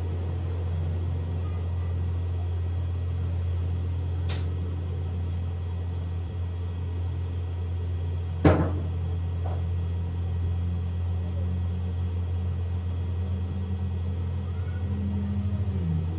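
A steady low machine hum, with a sharp click about eight and a half seconds in and a fainter click about four seconds in.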